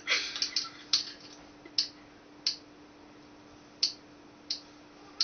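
Sharp ticks at uneven intervals, several close together in the first second and then about one every second or so, over a faint steady hum.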